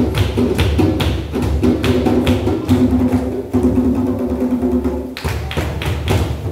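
Live hand drums played in a fast, steady rhythm, with a group of voices singing held notes over them.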